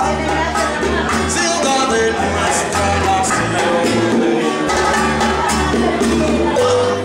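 Live Latin American band playing: acoustic guitar, upright bass plucking a steady bass line and hand drums, with a man singing.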